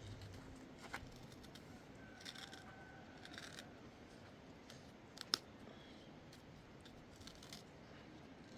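Faint background hiss with a few small, sharp clicks, the sharpest about five seconds in.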